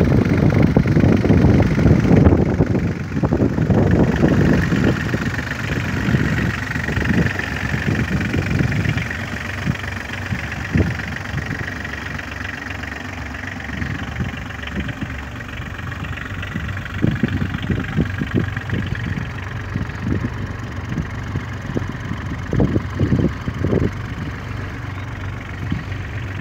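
Two Daihatsu Charade CL61 three-cylinder turbo-diesel engines idling together, with uneven low rumbles over a faint steady high whine.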